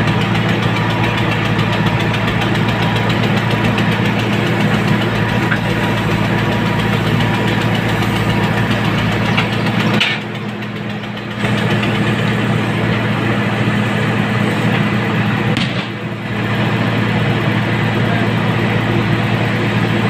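JCB 3CX backhoe loader's diesel engine running steadily while the backhoe digs, heard from inside the cab. It eases off briefly about halfway through and again a few seconds later.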